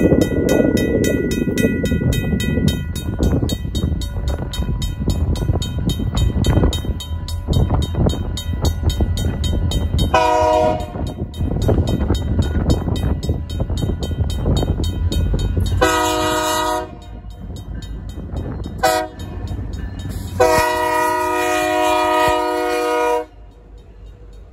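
RACO mechanical crossing bell ringing rapidly while a Union Pacific diesel locomotive sounds its horn four times, the third blast short and the last the longest: the grade-crossing warning. Bell and horn stop together near the end.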